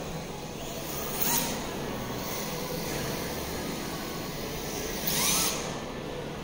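Radio-controlled cars running on a track, their motors whining up in pitch as cars pass, twice: about a second in and again near the end.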